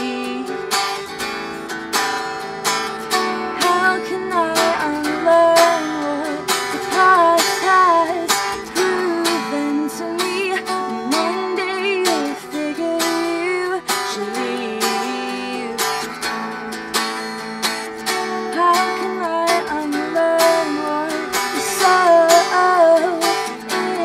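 A woman singing an indie pop song over her own strummed Hartwood electric guitar, the strokes coming in a steady rhythm.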